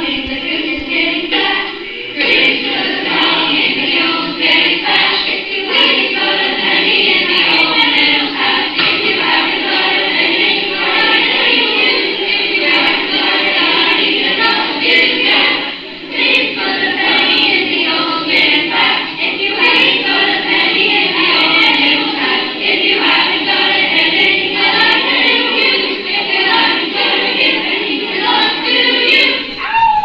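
Background music: a choir singing.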